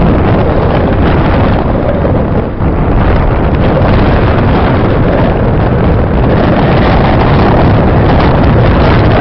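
Loud, steady rush of wind buffeting the microphone of a camera carried on a fast downhill ski run, mixed with the hiss of skis sliding over packed snow.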